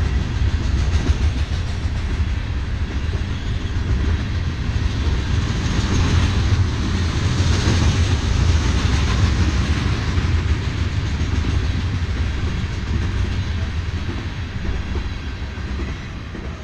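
Freight train cars rolling past, a steady rumble and clatter of steel wheels on the rails that swells in the middle and fades away near the end.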